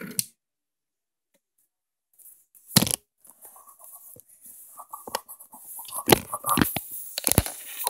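The tornado toy's motor stops just at the start. After about two seconds of quiet there is one sharp knock, then scattered plastic clicks, rattles and rustling as the container and its small balls are handled.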